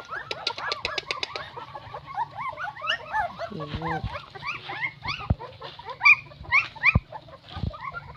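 Newborn puppies squealing and whining, many short rising-and-falling squeaks overlapping one another without pause.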